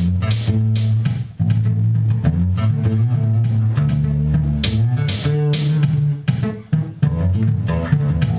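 Electric bass guitar playing a bass line of low notes that step up and down, each note plucked with a sharp attack.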